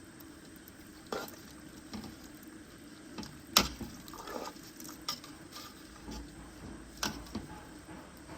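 Pot of soup bubbling, with a few sharp knocks like utensils against the pot; the loudest knock comes about three and a half seconds in.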